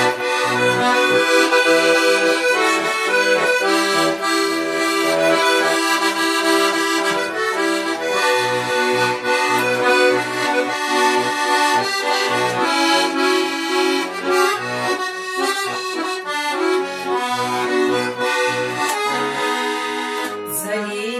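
Bayan (Russian button accordion) playing an instrumental interlude: a melody over bass notes repeating in an even rhythm.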